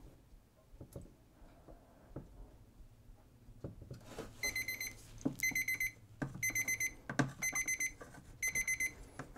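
Digital timer alarm beeping in quick bursts of several beeps, about one burst a second, starting about four seconds in, marking the end of a timed print-processing step. A few faint clicks come before it.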